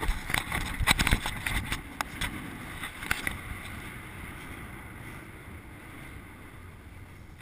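Sharp clicks and crunches of loose volcanic gravel and ash for about the first three seconds, then a steady rushing hiss that slowly fades, with some wind on the microphone.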